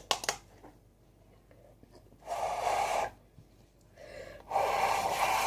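Two loud breaths from a person close to the microphone, the first lasting under a second and the second about a second, with a short quiet gap between.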